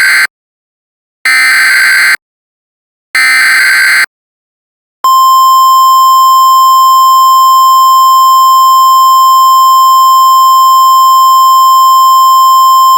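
Emergency Alert System header data: harsh digital screeching bursts about a second long with short gaps, the last two heard whole and ending about four seconds in. About five seconds in, a loud steady single-pitch attention tone starts, the weather-radio alert signal.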